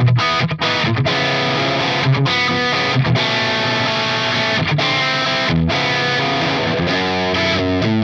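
Soloking MT-1 Classic electric guitar with Pulse Screamer X3 humbuckers played with overdrive: sustained distorted chords and single-note lines, with short breaks between phrases and quicker notes near the end.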